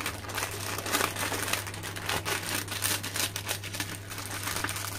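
Metallised foil snack packet crinkling and crackling as it is handled and worked open by hand, a dense run of crinkles.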